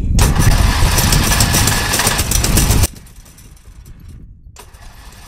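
Riding lawn mower's engine running, then shut off abruptly about three seconds in.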